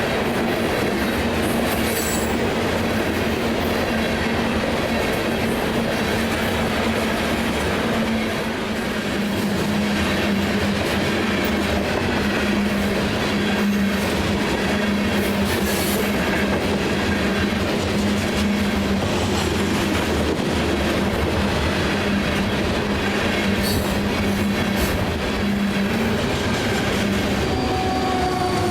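Freight grain train rolling past on an uphill grade: a continuous rumble of steel wheels on rail with clickety-clack over the rail joints and a steady low drone throughout. Higher steady tones come in near the end.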